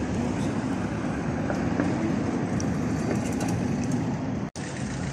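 Steady outdoor background noise of an open-air street market, a dense low rumble with no single clear source, cut by a split-second dropout to silence about four and a half seconds in.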